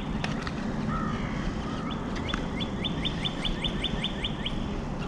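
A small bird singing a fast run of repeated chirps, about six a second, starting a little over two seconds in, over steady outdoor background noise. A couple of faint clicks are also heard.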